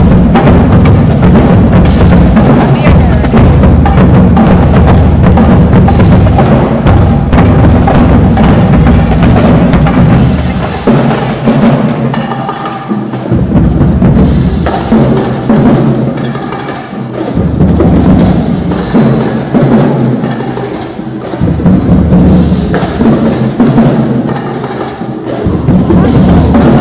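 Marching band drumline playing a loud, driving cadence on bass drums, snares and cymbals. The deep bass drum beats drop out for a few seconds at a time in the second half, then come back in.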